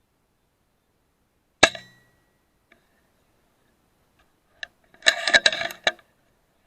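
One sharp air rifle shot about a second and a half in, with a short metallic ring after it. A quick run of metallic clicks follows near the end.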